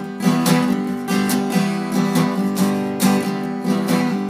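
Acoustic guitar strummed in a steady rhythm, playing an instrumental chord passage between sung lines of a folk song.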